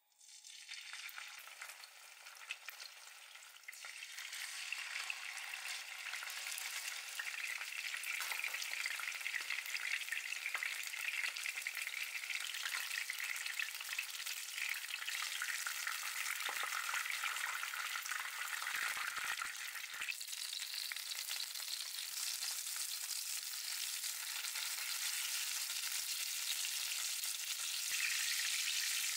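Salmon fillets sizzling as they pan-fry in hot oil, the sizzle building over the first few seconds after they go into the pan and then holding steady.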